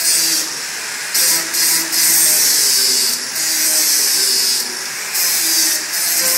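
Angle grinder grinding steel in a series of passes about a second long. In the short breaks between them the disc's contact noise drops away while the motor keeps spinning.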